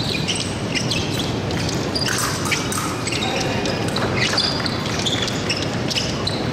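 Large sports hall ambience: a steady background of crowd and room noise, broken by scattered short high-pitched squeaks and sharp clicks, typical of fencers' shoes on the piste and blades meeting.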